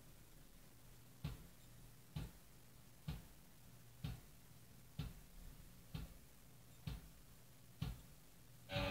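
Eight sharp ticks at an even pace of about one a second over a faint low hum, with music starting again near the end.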